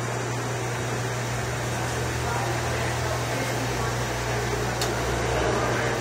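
Jackson commercial undercounter dishwasher running, giving a steady low hum under an even wash of mechanical noise.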